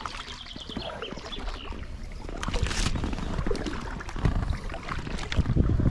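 Double-bladed paddles dipping and splashing as a two-person canoe is paddled. Water drips and there are irregular small knocks, with a louder splash about halfway through and heavier low knocks and rumble near the end.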